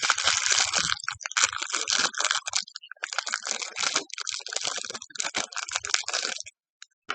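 Plastic packaging crinkling and small Lego pieces rattling as they are handled, in irregular bursts that stop about six and a half seconds in.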